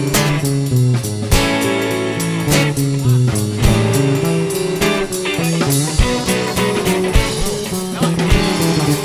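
Band music with no vocals: a guitar leads over bass and drum kit in an instrumental break of a pop-rock song.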